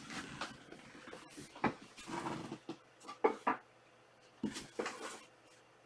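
Trading cards and plastic card sleeves being handled on a table: soft rustles broken by a handful of sharp clicks and taps.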